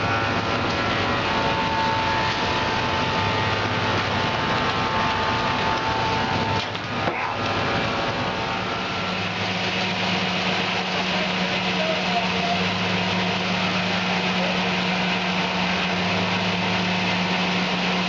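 Steam-engine-driven sawmill saw running and cutting into a log on the carriage, a steady dense noise. A high steady tone sounds in the first few seconds, and a low steady hum sets in from about nine seconds in.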